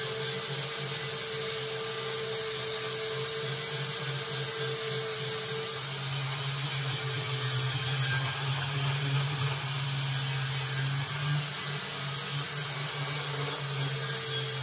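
Handheld power grinder grinding metal steadily, throwing sparks, as a cut-off bracket and weld are ground down smooth; its tone shifts slightly about six seconds in.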